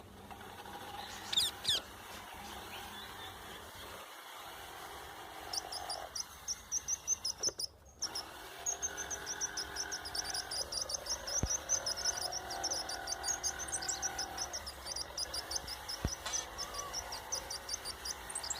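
Rapid series of short, high-pitched animal chirps repeating several times a second, with a single rising call earlier on.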